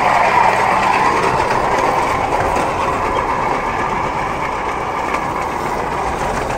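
Small rail bike's wheels rolling along old railway track, a steady rolling rumble that eases off slightly over the seconds.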